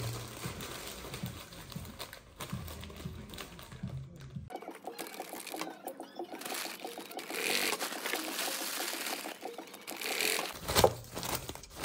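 ZOJE industrial sewing machine stitching a seam through lightweight fabric: a rapid, even run of needle strokes, with the fabric rustling as it is fed. A sharp knock sounds near the end.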